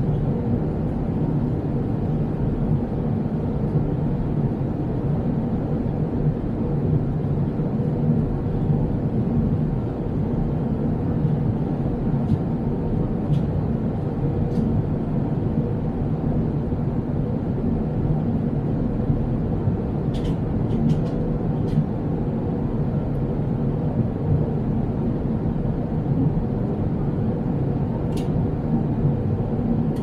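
Steady cabin drone of a jet airliner in cruise: a constant low rush of turbofan engine and airflow noise with a faint underlying hum, unchanging throughout. A few faint clicks sound around the middle and near the end.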